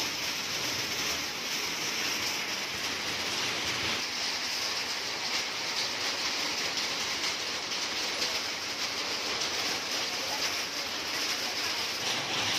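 Heavy rain falling steadily, hissing on the wet pavement and pattering on the tin roof of a covered walkway.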